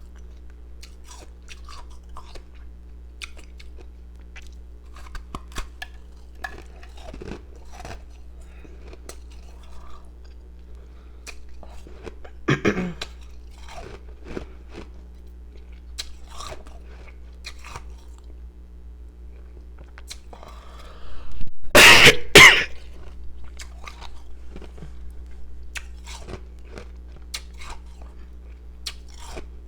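Ice being bitten and chewed, powdery pieces crunching in scattered crisp bites, over a steady low hum. About two-thirds of the way through comes a much louder, rough burst lasting about a second.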